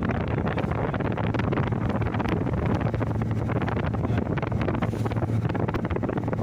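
Wind buffeting the microphone over the sound of sea water and waves, with a steady low hum underneath.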